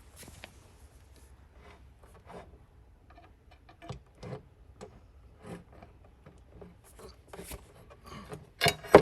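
Scattered clicks, light knocks and rubbing from handling metal desk-frame parts and screws against a wooden desktop, with one sharp, loud knock near the end.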